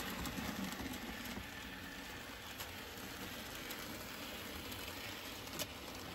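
N gauge model diesel locomotive and Megafret container wagons running along the track: a steady whirring rattle of motor and wheels on rail with a few faint clicks, slowly fading.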